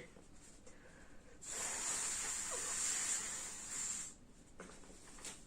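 Breath blown through the slit of a folded-paper vocal-cord model: a breathy hiss lasting nearly three seconds, starting just over a second in, as the air passes the paper flaps.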